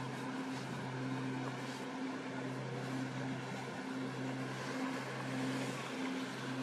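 An engine running steadily: a low, even hum with a fainter higher tone above it, over a haze of outdoor noise.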